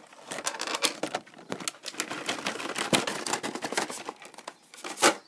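Packaging of an OtterBox Defender phone case, a cardboard box and a clear plastic tray, being handled and pulled open by hand: a run of rapid clicks, taps and rustles, with one sharp click near the end.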